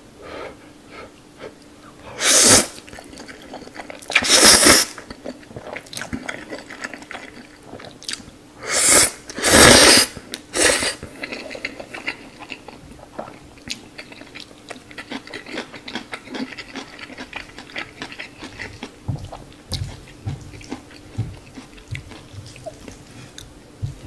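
Close-up mouth sounds of a person eating instant black-bean ramen noodles (Jjajaroni): about five loud noodle slurps in the first half, then quieter chewing with small wet clicks.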